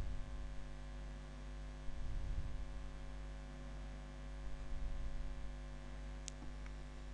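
Steady electrical mains hum with faint hiss on the recording, and a brief faint click near the end.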